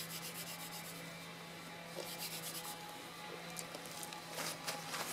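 Hand drill fire-by-friction: a wooden spindle spun back and forth between the palms, grinding in the notch of a wooden hearth board, in faint runs of rapid scratchy rubbing. The wood-on-wood friction is warming the board and grinding out dust toward an ember.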